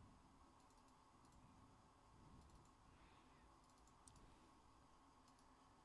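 Near silence with a few faint, scattered clicks of a computer keyboard and mouse.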